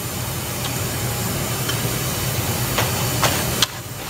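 Metal spoon clicking lightly a few times against a stainless steel pot as it works stew into bread, over a steady hiss with a low hum that drops away about three and a half seconds in.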